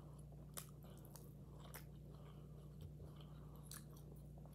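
Faint close-up chewing of a mouthful of pico de gallo (chopped fresh tomato and onion salsa), with a few soft crunches and wet mouth clicks, over a steady low hum.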